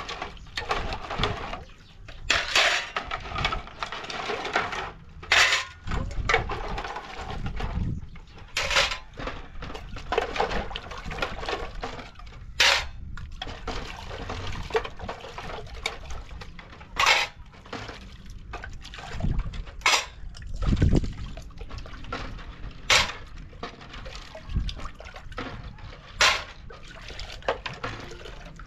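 Irregular sharp clinks and knocks of hard objects, with water sounds between them.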